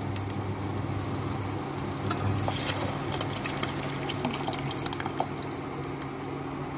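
Thick cooked dal being poured into a steel pot of hot fried onion masala, sizzling as it lands. A few light metal clicks come around the middle and again near the end, over a steady low hum.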